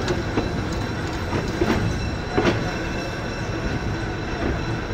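Small steam locomotive running slowly: a steady low rumble broken by a few irregular sharp knocks.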